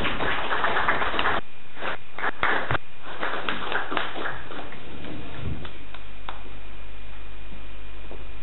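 Applause from a small group in a room, dense at first and thinning to a few scattered claps by about four seconds in, then fading to faint room noise with a low steady hum.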